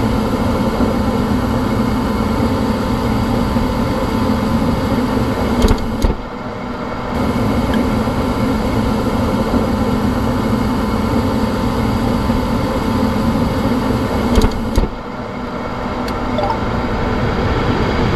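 Gas furnace running: a steady motor hum and rush with a faint steady tone. The level dips twice for about a second, then comes back.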